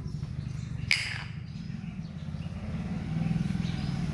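A steady low engine rumble with a fast pulse, growing louder about three seconds in, with one short sharp sound about a second in.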